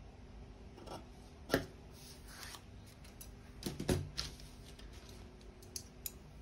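Steel scissors cutting through pattern paper in a few separate short snips, with paper rustling and a duller knock about four seconds in as the sheet is handled on the table.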